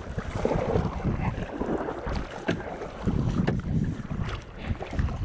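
Kayak paddle strokes in river water, with splashes and drips, under heavy wind noise on the action camera's microphone.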